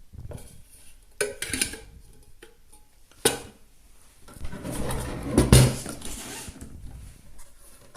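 Small lightweight metal camping kettle being handled: a few light clinks, a sharp knock about three seconds in, then a longer stretch of clattering and rattling.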